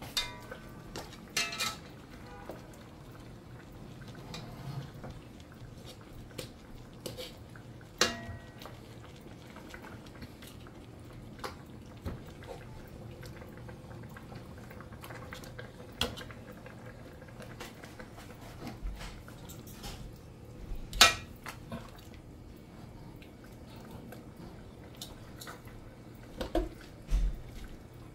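Kitchen clatter: scattered clinks and knocks of pots, lids and metal utensils, one clink ringing briefly about eight seconds in and the loudest knock about twenty seconds in, over a low steady background.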